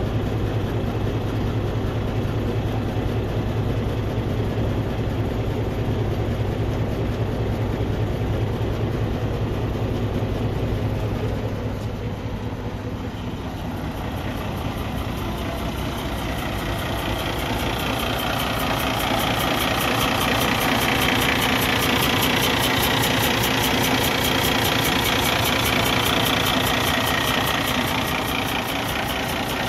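Cummins ISX15 diesel engine idling. The first half is a steady low drone; about halfway through the sound becomes louder and sharper as the engine and turbo come close. The engine is leaking compression into the exhaust, an internal engine failure.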